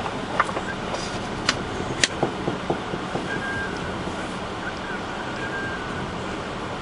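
Steady outdoor background noise with a handful of short, sharp clicks and knocks in the first three seconds.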